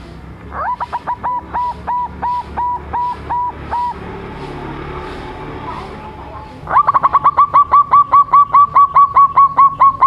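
Young zebra dove (perkutut) cooing in rapid runs of short staccato notes: one run about half a second in, then after a pause a louder, faster run near the end.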